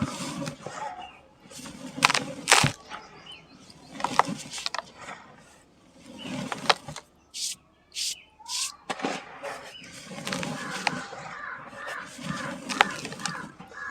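Dry sand-cement chunks crumbling and breaking apart, with scattered sharp cracks and short bursts of gritty, dusty crumbling.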